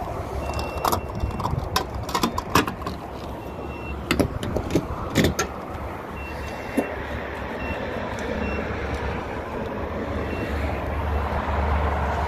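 Fuel cap and pump nozzle being handled at a car's filler: a series of clicks and knocks over the first five seconds or so. Then comes the steady rush of gasoline flowing from the pump nozzle into the tank, growing a little louder near the end. Short high beeps sound now and then throughout.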